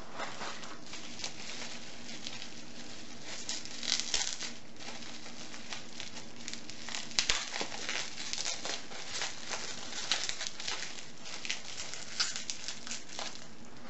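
Packaging being handled and unwrapped: irregular crinkling and rustling with scattered sharper crackles, over a faint steady hum.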